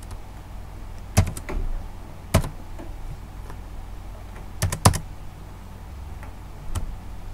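Computer keyboard keys pressed a few at a time: single sharp clicks spread unevenly, some in quick pairs, over a faint low steady hum.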